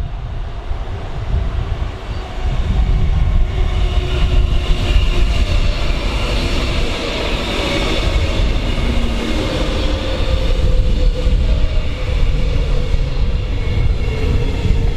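DB class 420 S-Bahn electric multiple unit passing at speed: a heavy rumble of wheels on rails with a whine over it, growing louder a few seconds in as the train reaches the platform. Near the end one tone of the whine sinks slowly in pitch.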